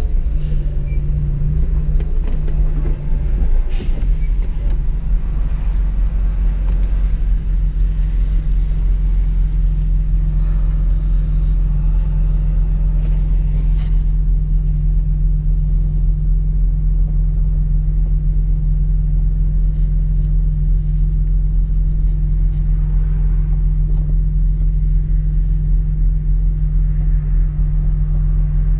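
Toyota Supra's engine droning steadily at even revs inside the cabin while driving, with road noise under it. A couple of faint clicks stand out briefly, around four seconds in and again near the middle.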